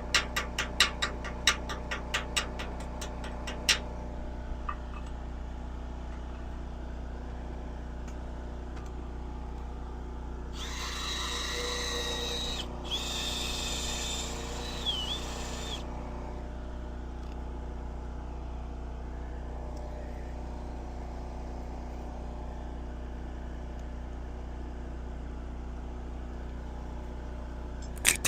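Workshop machine noise: a steady hum throughout, rapid regular ticking in the first few seconds, and about five seconds of hissing power-tool work with a high whine near the middle.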